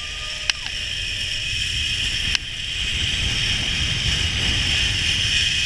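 Zip-line trolley running down the steel cable, a steady whirring hiss that grows louder as the rider gathers speed, mixed with wind rushing over the microphone. Two sharp clicks sound about half a second and two and a half seconds in.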